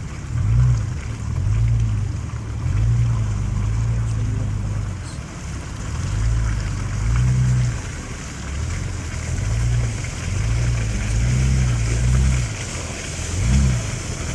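Off-road vehicle's engine revving up and down every second or two as it is driven slowly over a rough dirt road, with a steady rush of tyre and road noise.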